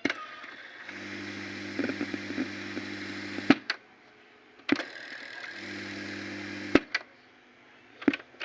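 Sony cassette player's control keys clicking several times. Between presses the tape transport runs with a steady motor hum and hiss for a few seconds, twice, each run cut off by a click.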